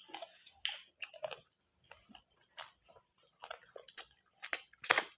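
A person chewing pork close to the microphone, with irregular wet smacks and clicks of the mouth. The loudest two smacks come near the end.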